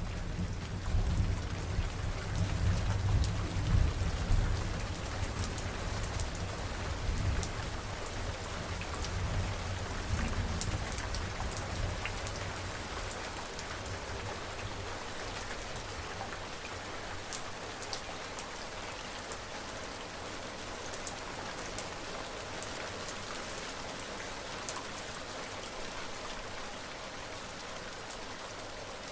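Steady rain falling, with scattered sharp drop hits close by. A low thunder rumble dies away over the first ten seconds or so, leaving only the rain.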